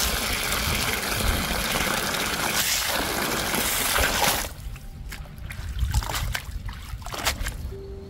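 Water running and splashing, which stops abruptly about four and a half seconds in; a few light clicks and knocks follow.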